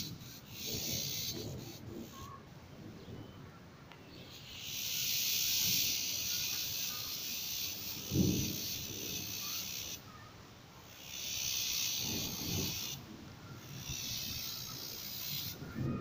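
Outdoor ambience under an approaching storm front: a high hiss that swells and stops in stretches of a few seconds, with short low rumbles of wind about eight and twelve seconds in and again at the end.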